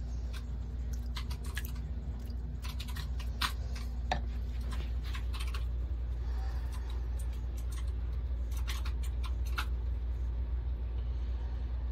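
Irregular small clicks and taps from a plastic fish cup being handled at a small aquarium, over a steady low hum.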